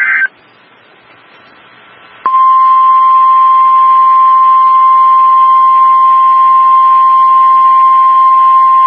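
NOAA Weather Radio alert sequence: the tail of an EAS/SAME digital header data burst cuts off just after the start, then after about two seconds of faint hiss the 1050 Hz warning alarm tone comes on, a single loud steady tone that holds without a break. The tone signals that a warning broadcast is about to follow.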